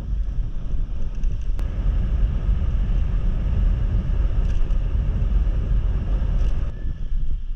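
Wind rumbling on the microphone of a moving motorcycle, with road noise and a faint, steady engine hum underneath.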